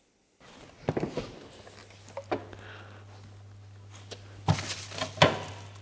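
Someone going through an open refrigerator: a few knocks and clatters as things are moved about inside, the loudest about five seconds in. A steady low hum sets in about a second and a half in.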